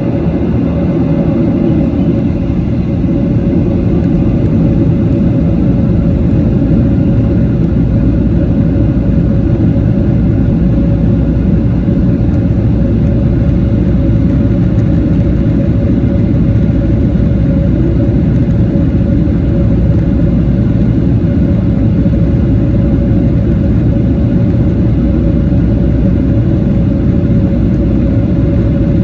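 Boeing 737-800 engines and airframe heard from inside the cabin: a loud, steady rumble with a steady hum, building slightly over the first few seconds and then holding.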